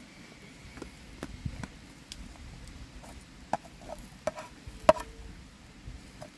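A series of irregular sharp knocks and clicks, some with a brief ring, the loudest about five seconds in.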